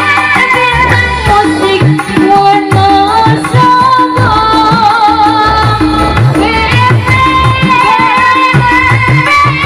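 Loud, upbeat live band music played on a Korg arranger keyboard. A melody line runs over a repeating hand-drum rhythm and bass, with a woman singing into a microphone.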